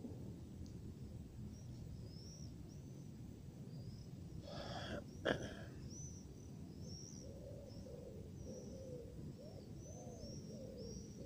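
Outdoor park ambience: a steady low city rumble with small birds chirping high and, from about seven seconds in, repeated low cooing calls. About five seconds in, a brief burst of noise ends in a sharp click, the loudest sound.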